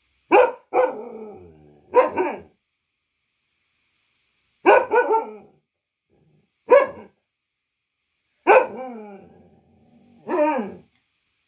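Black-and-tan local-breed dog barking in short clusters of one to three barks with pauses between them. A couple of the barks trail off into a long, falling tone.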